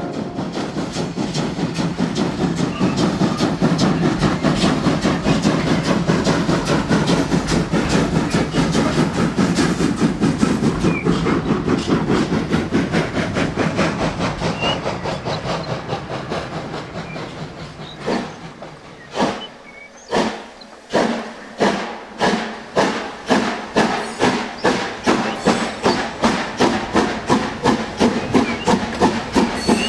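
Steam locomotive sound: a fast, steady run of rhythmic exhaust beats with hiss that dies down about two-thirds of the way through. Then separate chuffs start up and quicken to about two a second as a locomotive pulls away.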